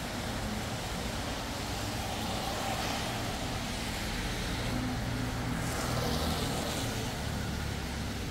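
City traffic on a wet road: vehicles passing with tyre hiss over a steady low rumble, one pass swelling around three seconds in and a louder one around six seconds in.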